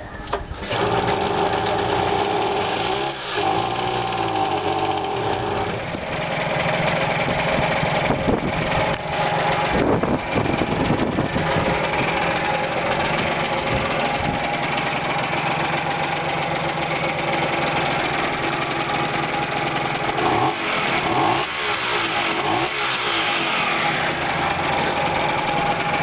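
Reworked two-stroke Tomos moped engine running on its first start after the rebuild, now that its carburettor setting has been corrected. It catches about half a second in and runs steadily, its revs rising and falling a few times.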